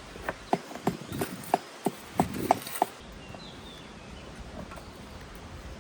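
About nine sharp, irregular knocks of stone work in the first three seconds of dry stone walling, then a quieter steady outdoor background.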